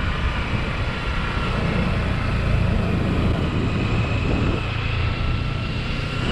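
Sport motorcycle, a Kawasaki Ninja 300, running at road speed with wind rushing over a helmet-mounted camera's microphone; the sound stays steady.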